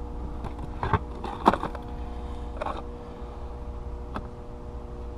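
Metal hand tools clinking and knocking as they are rummaged through in a search for a small 8 mm wrench: a handful of separate clinks, the loudest about a second and a half in, over a steady hum.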